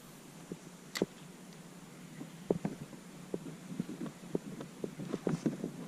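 Light, irregular knocks and clicks aboard a kayak underway, with one sharper click about a second in; the knocks grow busier toward the end.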